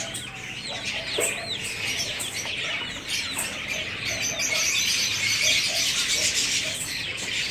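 Young chickens peeping in short, high, arching chirps, with low clucks repeating a few times a second through the middle. A denser high twittering of small cage birds swells from about halfway.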